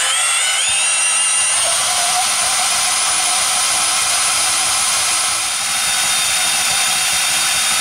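Milwaukee M12 Fuel brushless portable bandsaw (2529-20) running at full throttle, its blade cutting through square aluminum stock. The cut gives a steady sawing hiss with high whining tones that hold level throughout.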